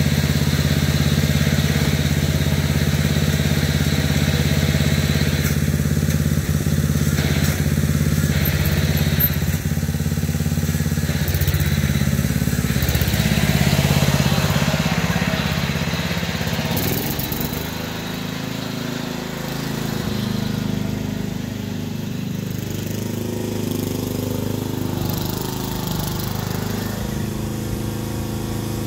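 Riding lawn mower's small gasoline engine running close by with a steady drone. A little past halfway its pitch shifts and it becomes quieter, running on steadily farther off.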